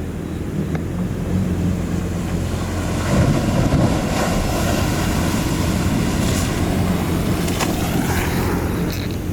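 Ocean waves breaking and wind buffeting the microphone over a steady low engine hum, with a surge of wave noise about three seconds in.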